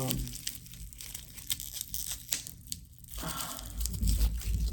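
Packaging crinkling and rustling as it is handled, with scattered small clicks and knocks, and a few low thumps near the end.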